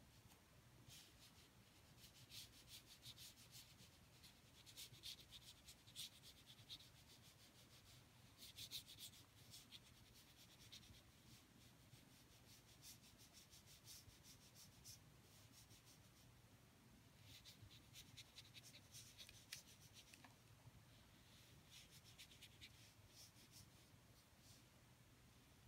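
Water brush bristles scrubbing on paper in quick strokes, in several faint bursts with short pauses between, washing crayon pigment into a watercolour wash.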